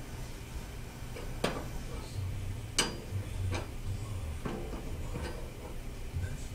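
A handful of sharp clicks and snaps, roughly a second apart, from the iPod box being handled and cut, over a low rumble of handling.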